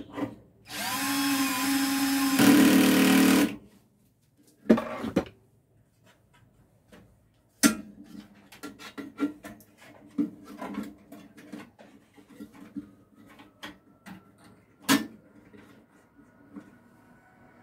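A power drill runs in a loud burst of about three seconds, with a shorter burst a little later, followed by scattered clicks and knocks of parts being handled.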